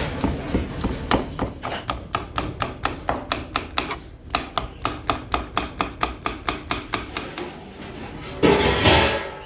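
Chef's knife chopping vegetables on a plastic cutting board, a steady run of sharp knocks at about four cuts a second, with a brief pause near the middle. A louder burst of scraping noise comes near the end.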